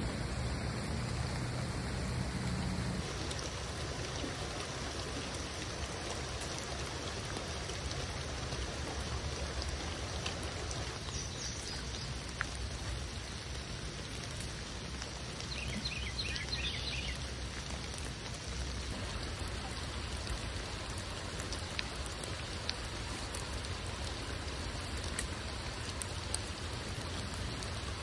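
Steady rain falling on foliage and wet ground, with scattered drips. A brief run of faint high chirps comes a little past halfway.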